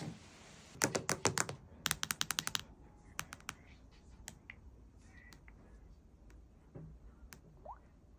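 Quick clicking like typing on keys: two fast runs of clicks, one about a second in and one about two seconds in, then scattered single clicks.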